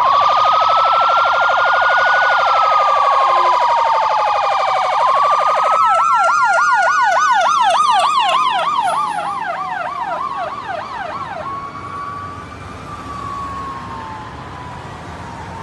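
Emergency vehicle sirens passing, including an ambulance: a slow wail rising and falling throughout, at first with a rapid pulsing tone beside it. About six seconds in that tone gives way to a fast yelp, about four cycles a second, which stops near twelve seconds. The wail then carries on alone, fading as the vehicles pull away.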